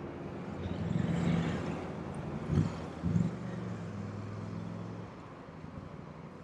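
Highway traffic passing close by: cars, pickups and a semi truck with their engines humming. The traffic swells about a second in, there are two short thumps about half a second apart, and it eases off near the end.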